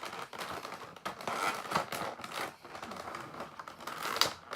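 Clear plastic packaging trays being handled: irregular crinkling and small clicks, with one sharper click near the end.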